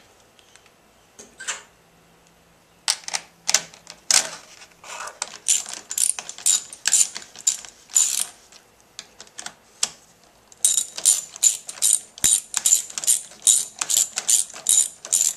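A socket ratchet clicking in quick runs of strokes as the mounting bolts are run in and tightened. The runs start about three seconds in, pause briefly near the middle, then come faster.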